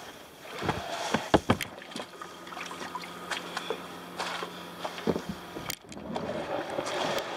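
Kayak coming in to a rocky shore landing: several sharp knocks of paddle and hull about a second in, then water sloshing and splashing with small scattered clicks as the boat is worked against the shore.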